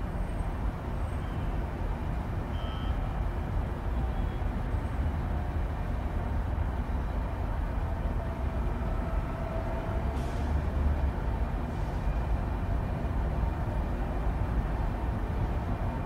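A train approaching from a distance: a steady low rumble.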